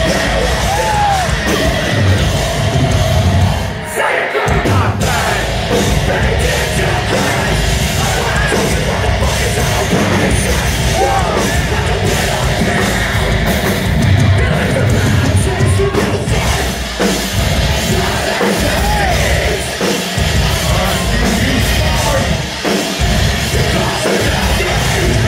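Metalcore band playing live, loud, with screamed vocals over heavy distorted guitars and drums, heard from within the crowd; the music drops out for a moment a few times.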